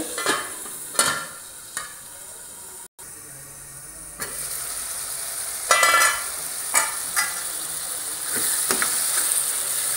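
A metal lid clinks a few times as it is set on a kadai of frying tomato masala. Later the masala sizzles in the pan, with a ringing metal clatter and a couple of knocks from the lid and pan about six seconds in, then a spatula stirring it, louder near the end.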